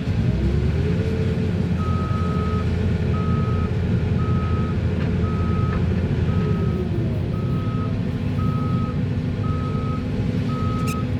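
Heavy diesel engines of an excavator and dump truck running loudly, the engine pitch rising near the start and falling away a few seconds later. A reversing alarm beeps steadily about once a second from about two seconds in.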